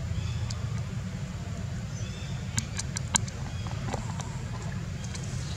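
Outdoor background: a steady low rumble, with a few sharp clicks about halfway through and faint high chirps.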